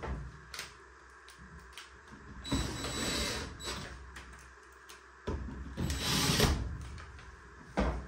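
Cordless drill/driver run twice, about a second and then about a second and a half, driving screws during reassembly of a washing machine, with a few sharp clicks and knocks around it.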